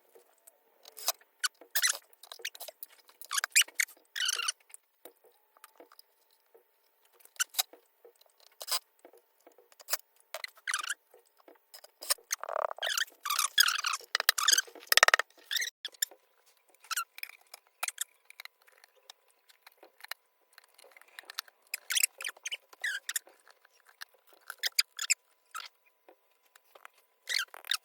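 Irregular squeaks, clicks and scrapes of hand work on a loudspeaker cabinet: a screwdriver turning screws and speaker parts being handled. The sounds cluster most densely about halfway through.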